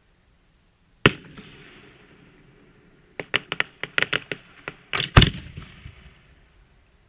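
Aerial firework shells bursting. A single sharp bang comes about a second in and dies away in a short echo. A quick string of crackling pops follows around three seconds in, then two loud booms near the five-second mark, the loudest of all.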